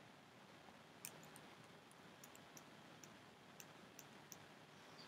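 Faint, irregular clicks of a computer mouse scrolling through a document, about a dozen starting about a second in, over near-silent room tone.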